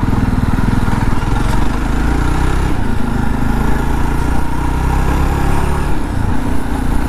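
Jawa Perak's 334 cc single-cylinder engine running with a steady beat, its note shifting slightly about six seconds in.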